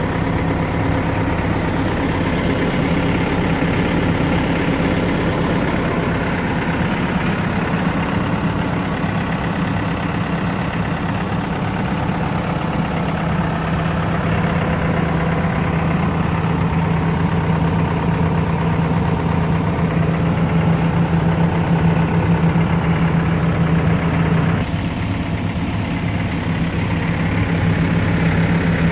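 Cat 430D backhoe loader's diesel engine idling steadily, with a low, even hum.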